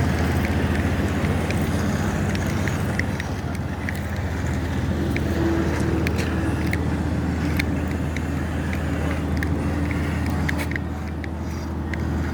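A motor vehicle's engine running steadily with an even low drone, with a few faint ticks over it.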